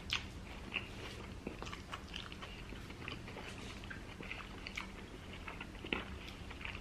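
Close-miked chewing of people eating seafood: many small, irregular wet clicks and soft crunches from mouths and teeth.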